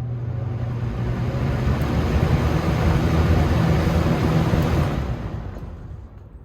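Galaxy 3714 box fan running on high, its air rushing and buffeting against the microphone. The rush swells through the middle and dies away near the end.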